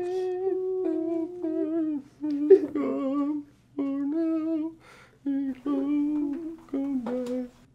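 A voice humming a slow, wordless tune in long held notes with short pauses between them, the pitch stepping gradually lower.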